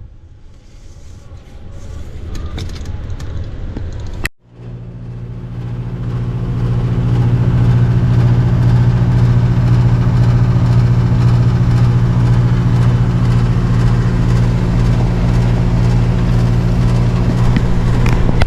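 Amana heat pump's outdoor unit (compressor and condenser fan) running with a steady low hum, working again after a failed capacitor was replaced. A quieter stretch with a few faint clicks comes first; after a cut about four seconds in, the hum grows louder over the next few seconds and then holds steady.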